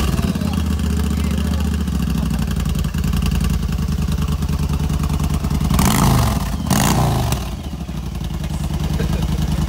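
V-twin cruiser motorcycle with heat-wrapped aftermarket exhaust and slash-cut mufflers idling just after starting. The throttle is blipped twice, about six and seven seconds in, each rev rising and falling, before it settles back to idle.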